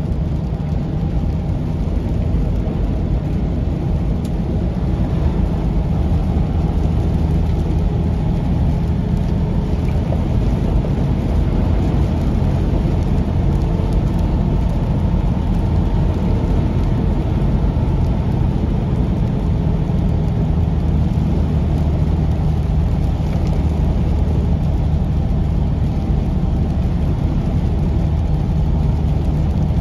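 Semi-truck's diesel engine droning steadily at cruising speed, with tyre and road noise, heard from inside the cab.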